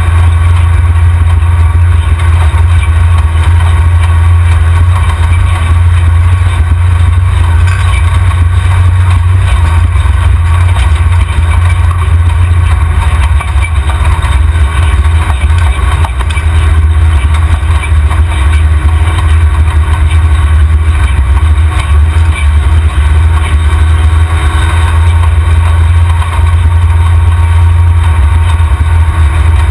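Off-road vehicle's engine and drivetrain running, a loud, steady low drone, heard from a camera mounted under the chassis by the rear axle.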